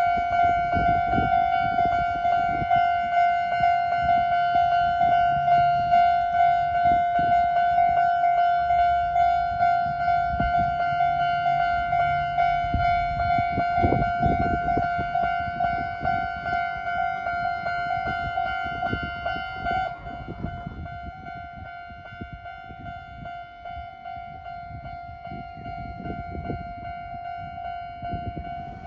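Japanese railway level crossing's electronic warning bell ringing in a fast, steady pulsing rhythm, warning of an approaching train. It becomes quieter about twenty seconds in.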